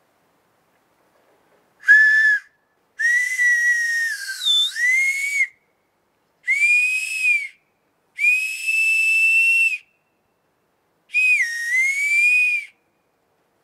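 A Maienpfeife, a spring whistle made from a green shoot's slipped bark, blown in five shrill, breathy notes: a short one, then longer ones, two of which dip in pitch and bend back up while the others hold steady.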